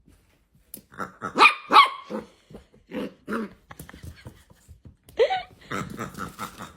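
A dog barking repeatedly in short separate barks, the loudest two close together about a second and a half in, with a denser run of barks near the end.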